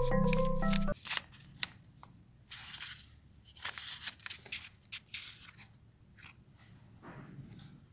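Background music with marimba-like notes that stops about a second in, followed by faint, irregular rustling, crinkling and clicks of a folded paper wallet being handled and opened.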